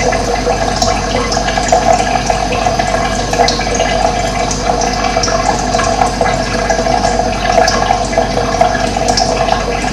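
Running water flowing steadily with a constant gurgling rush, with short high chirps scattered over it.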